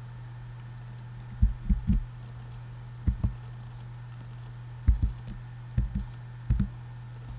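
Computer keyboard keys pressed one at a time: about ten separate clicks in small groups of one to three, with pauses between them, as the cursor is stepped along a line of text. A steady low hum runs underneath.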